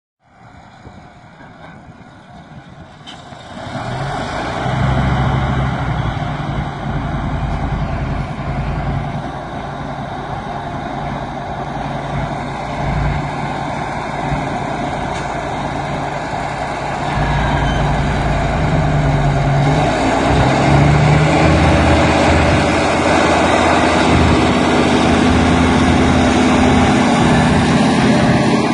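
ACO 460 articulated tractor's ADE V10 twin-turbo diesel engine running under load while pulling a ripper. It comes up out of quiet over the first few seconds, runs steadily, and grows louder again past the middle.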